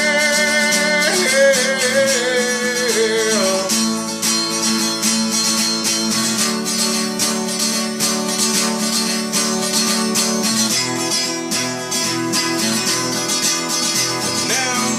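Acoustic guitar strummed steadily through an instrumental break in a country-style song.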